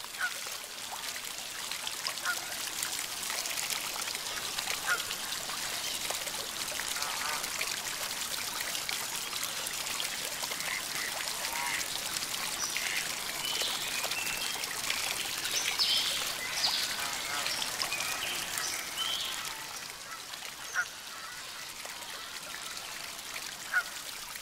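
Fountain water splashing and pouring steadily, with ducks quacking now and then, most often through the middle stretch.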